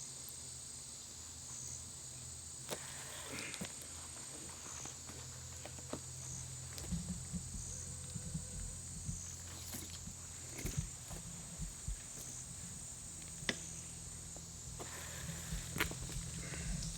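Scattered clicks, knocks and rustles of boots and metal climbing gear on the tree as a hunter steps up his climbing sticks and aider. Behind them runs a steady high insect chorus.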